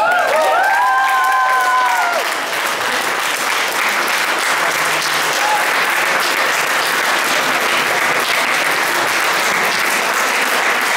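A mixed choir's last sung notes slide and are held, then end about two seconds in. Steady audience applause runs under them and carries on alone.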